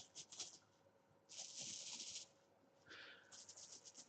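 Dice shaken in a dice bag, rattling in three short bursts, the first ending about half a second in and the last starting near the end.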